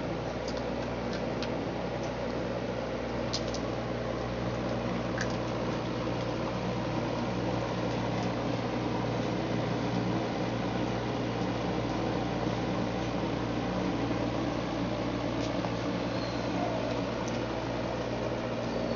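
Steady mechanical hum with a low drone under it. A few faint ticks and two brief high squeaks sound over it.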